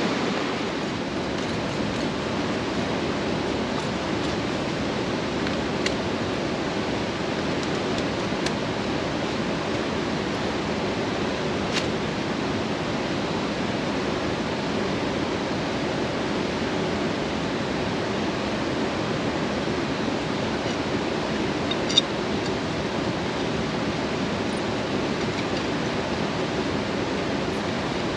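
Steady rush of a mountain stream's flowing water, with a few faint ticks and one sharp tap about two-thirds of the way through.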